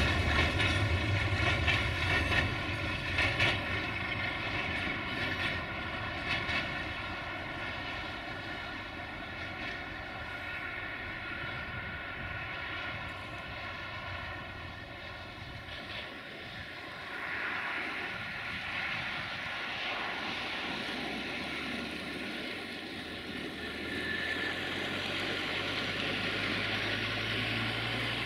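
A freight train's wagons rolling past, rumbling with clicks over the rail joints in the first few seconds, then giving way to the steady pitched drone of a distant diesel-electric locomotive engine. A wider rushing noise swells up past the middle.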